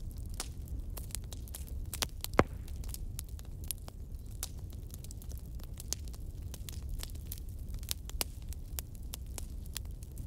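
Wood fire crackling, with many irregular snaps and one louder pop about two and a half seconds in, over a steady low rumble.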